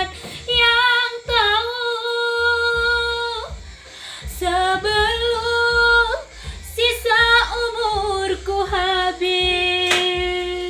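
A woman singing an Indonesian ballad, drawing the words out into long held notes.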